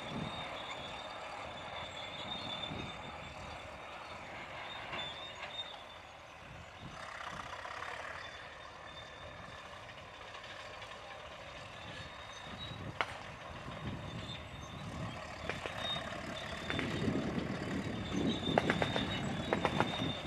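WWII jeeps running with their mounted machine guns firing blanks in rattling bursts, a single shot about 13 seconds in and rapid, dense fire in the last few seconds.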